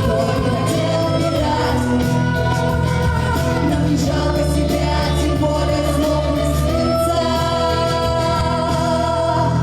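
A song sung over a loud instrumental backing, with long held notes above a steady bass: a contestant's performance of a patriotic soldiers' song.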